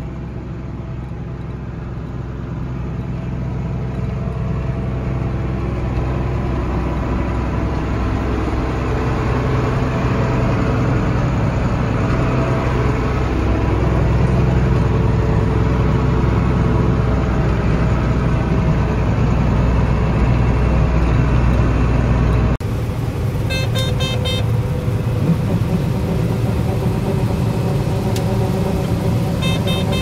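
Combine harvester and tractor running side by side in a soybean field while the combine unloads into a grain cart: a steady engine and machinery drone that grows louder over the first dozen seconds. About two-thirds of the way in it cuts to a different recording, a steadier engine hum with short spells of rapid ticking.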